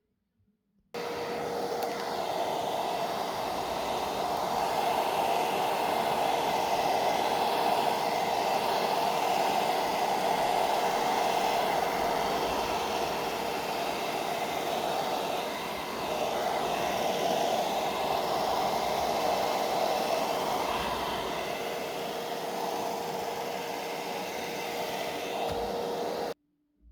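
A small electric fan motor running steadily with a constant hum, switched on about a second in and cut off shortly before the end.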